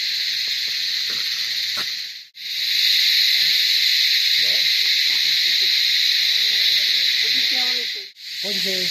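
Steady, high-pitched chorus of forest insects, an unbroken shrill drone. It cuts out briefly twice, about two seconds in and near the end, where the clips are cut.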